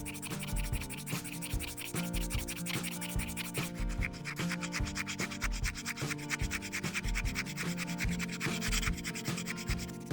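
Sandpaper rubbing back and forth over a glued and baking-soda-filled plastic scissors handle in quick, even strokes, smoothing the repair. Soft background music plays underneath.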